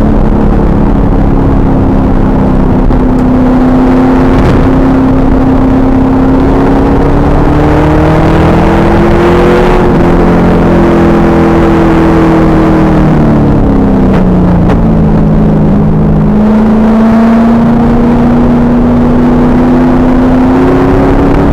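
2000 Pontiac Trans Am Firehawk's 5.7-litre V8 running hard on track, recorded very loud and rough. The engine note climbs slowly for about ten seconds, falls away about two-thirds of the way through, then climbs again.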